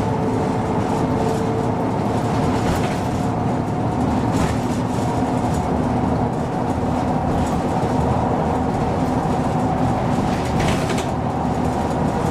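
2007 MAN NG 313 articulated city bus with a Euro IV diesel, driving along: steady engine and running noise with a whine that sinks slightly in pitch, and a few short rattles.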